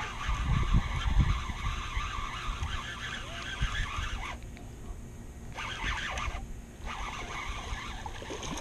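Baitcasting reel being cranked to fight in a hooked bass, a steady run of reeling that stops briefly twice in the second half, with wind and handling thumps on the camera mic about a second in.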